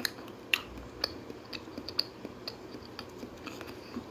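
Crunchy fried pork cracklings (torresmo) being bitten and chewed: irregular crisp crackles and clicks, a few a second, the strongest about half a second and a second in.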